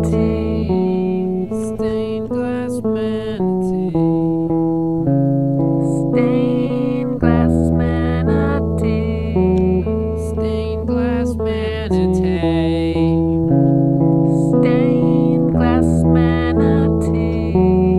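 Instrumental break in a song: plucked guitar playing changing notes over long held bass guitar notes.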